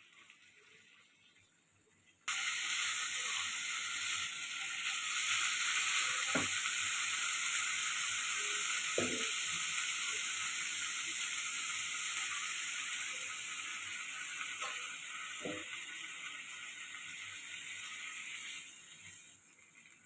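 Food sizzling in hot oil in a pan: a steady frying hiss that starts suddenly about two seconds in and dies down near the end, with a few knocks of a spoon or spatula against the pan as it is stirred.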